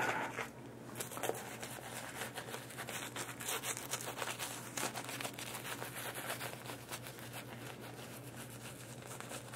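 Omega S3 shaving brush lathering Proraso shaving cream on a stubbled face: a soft, continuous wet crackle and swish of bristles working the foam.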